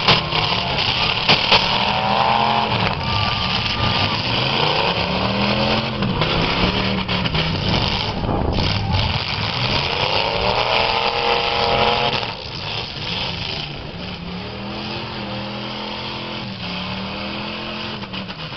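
Eight-cylinder demolition derby cars revving hard, engine pitch rising and falling again and again as they spin their tyres and ram each other. A couple of sharp bangs come near the start.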